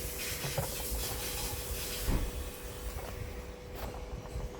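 Steady background hiss with a faint steady hum-like tone and a few light ticks; the top of the hiss drops away about halfway through.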